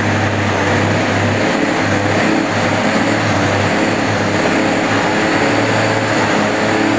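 Kenworth truck's diesel engine running hard under load as it drags a truck-pulling sled, a loud, steady drone with a deep hum that holds even throughout.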